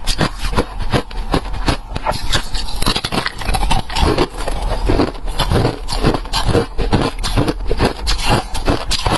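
Ice being bitten and chewed close to the microphone: a steady run of rapid, dense crunches.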